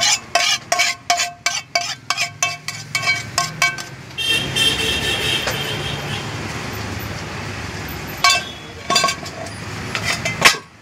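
A metal spoon rapped against the rim of a metal cooking pan, about four ringing clinks a second, knocking the last Maggi noodles out onto a plate; a few more clinks of the spoon against metal near the end, over steady street traffic noise.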